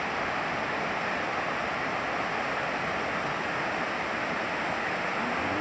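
Steady rushing of a fast-flowing river, an even hiss with no breaks.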